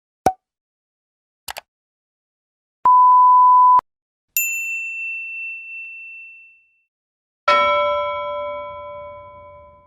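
A run of separate editing sound effects with silence between them. First comes a short click, then a quick double click, then a steady beep about a second long. A bright ding follows and rings out for about two seconds, and the run ends with a struck bell-like chime of several tones that fades slowly over more than two seconds.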